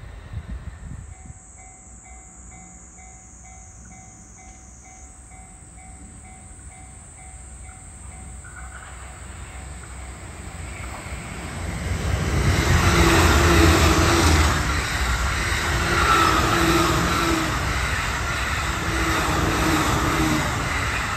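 JR East E531-series electric commuter train approaching and running past close by. It grows louder from about eight seconds in and stays loud as the cars go by.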